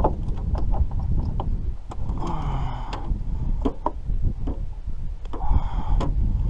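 Handling sounds in an aluminium fishing boat while a catfish is netted: scattered knocks and clatters over a steady low rumble, with two short pitched sounds about two and five and a half seconds in.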